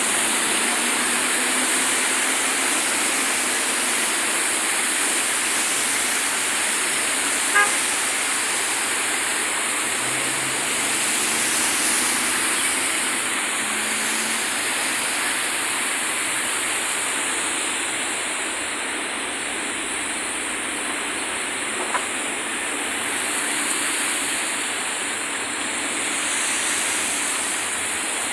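Water rushing steadily through a canal carrying storm runoff, an even hiss with no letup. A brief sharp sound cuts in about seven and a half seconds in, and a faint click comes near twenty-two seconds.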